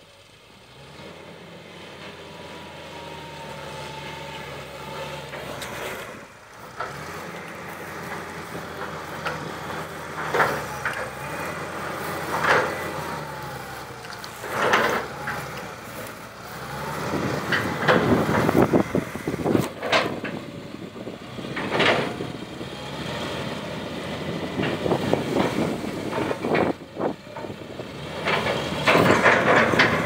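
Hitachi tracked excavator's diesel engine running under load while its bucket tears at a large tree stump, with a string of loud sharp cracks and spells of dense crackling as roots and wood break.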